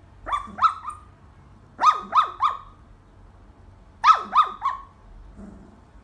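Dalmatian puppy yipping in its sleep: three sets of three quick, high yips, each falling in pitch, the small dream barks of a sleeping puppy.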